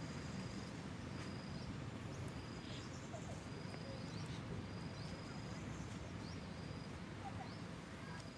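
Outdoor ambience: a steady low rumble under a thin, high, short chirp that repeats about once a second, from a bird or insect.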